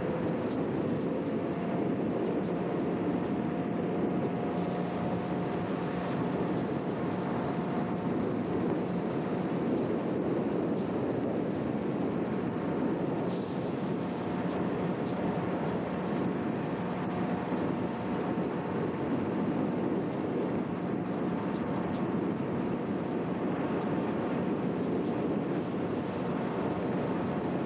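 Tow boat's engine running steadily at speed, a faint steady drone under a continuous rush of water spray and wind noise on the microphone.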